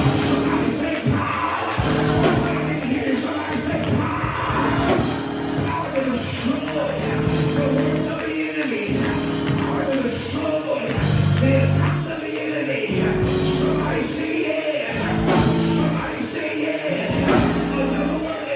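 Live gospel praise music in a church: sustained keyboard chords with singing voices over them.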